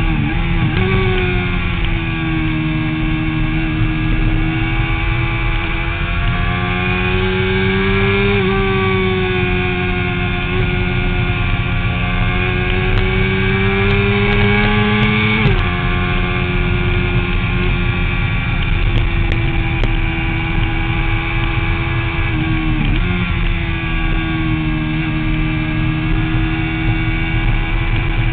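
Motorcycle engine running hard on a track lap, heard from the bike itself over wind rush. Its pitch holds or climbs slowly, with sudden drops at gear changes: at the start, about 8 s in, about 15 s in and about 23 s in.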